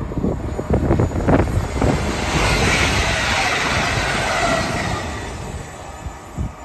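Express passenger train passing close at speed: a loud rush of wheel, rail and wind noise with a few sharp knocks as it arrives and a falling tone as it goes by, dying away about five seconds in.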